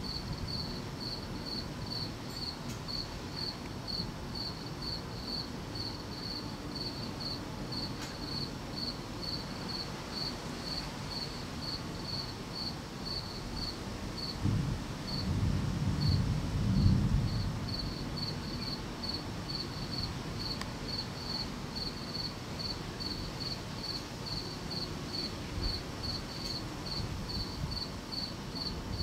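A cricket chirping steadily at night, about two to three high chirps a second. A low rumble swells and fades about halfway through, the loudest sound here.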